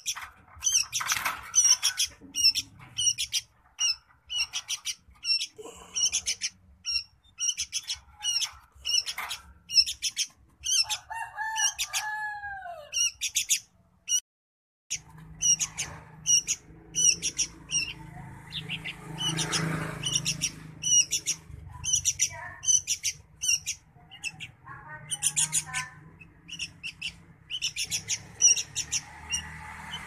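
Young sooty-headed bulbul calling over and over, short high chirps about two a second, with a brief break about halfway.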